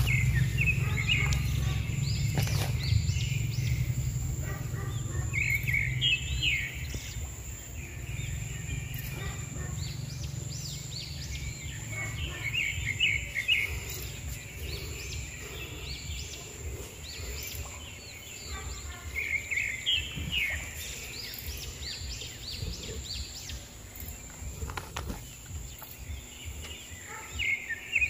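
Birds chirping in short bursts every several seconds over a low background rumble that eases after the first several seconds.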